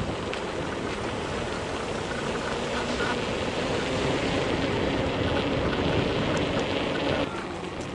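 Steady rushing noise of a bicycle in motion: wind buffeting the microphone and tyres rolling over paving stones. It drops abruptly near the end.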